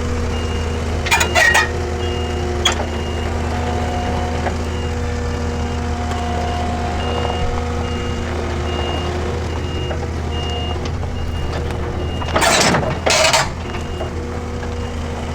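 Skid steer engine running steadily while its backup alarm gives a regular series of short high beeps. A few sharp clanks sound in the first few seconds, and two short loud noisy bursts come close together near the end.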